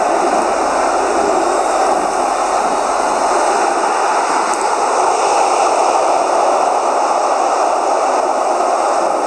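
Large football stadium crowd making a steady, loud wash of noise.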